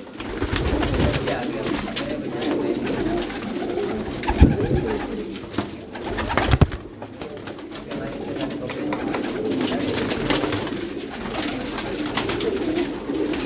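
Gola pigeons cooing continuously in low, rolling tones, with two sharp knocks about four and six and a half seconds in.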